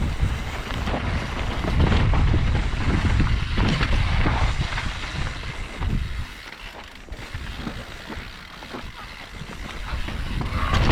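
Mountain bike descending a rough downhill trail: wind buffeting the microphone over the rumble and rattle of the tyres and bike on dirt and rocks, loudest in the first half and easing off after about six seconds.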